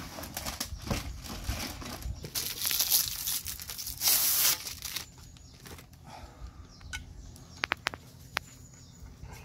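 Clear plastic wrapping being torn and stripped off chrome steel shelf poles, crinkling and tearing in two loud spells a few seconds in. A few sharp metallic clicks follow near the end.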